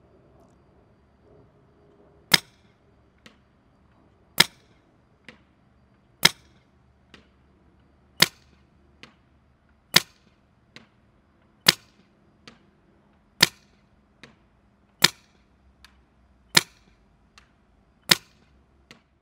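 Dye DAM paintball marker with a Lapco FSR rifled barrel firing First Strike rounds: ten sharp shots about two seconds apart, each followed about a second later by a much fainter knock.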